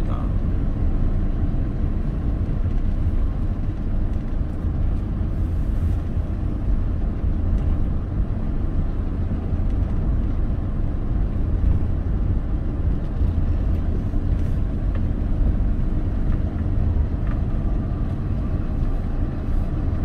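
Steady low rumble of a vehicle driving along a road: engine and tyre noise at an even level.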